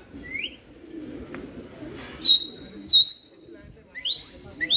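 A series of sharp high whistles, each a quick glide in pitch: a faint rising one at the start, two loud ones that dip and rise about two and three seconds in, and two rising ones near the end, over a low background rumble.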